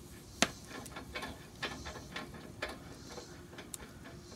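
Wood fire crackling: irregular sharp pops and clicks, several a second at times, with one much louder snap about half a second in.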